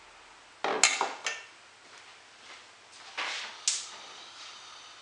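A metal spoon clinks three times against a small saucepan, each strike ringing briefly. A couple of seconds later comes more metal clatter as the saucepan is handled and set down at the stove.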